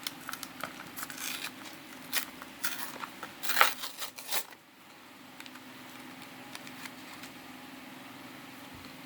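Foil wrapper of a Yu-Gi-Oh booster pack crinkling and tearing as it is opened, in a run of short rustles that stops about halfway through. A faint steady hum remains after.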